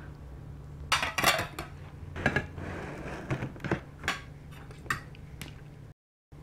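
Ceramic plates and cutlery clinking and knocking as plates are lifted and shifted around on a table: a string of sharp clinks over the first five seconds or so. The sound cuts out completely for a moment near the end.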